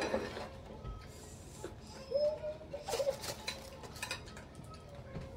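Light clinks and taps of a plastic fork and tableware against plates and food containers during a meal, a few sharp ones near the start and around three seconds in, over faint background music.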